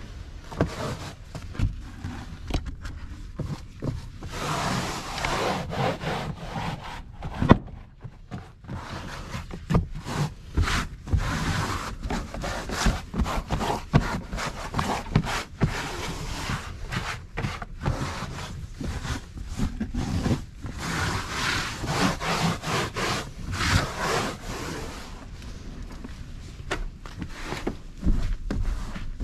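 Repeated, uneven scrubbing and rubbing strokes on fabric car-seat upholstery, with one sharp knock about seven seconds in.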